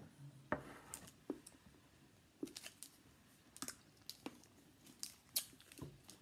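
Faint, scattered clicks and crinkles of people eating dark chocolate squares: chewing and mouth sounds, with light crackling from the foil wrappers.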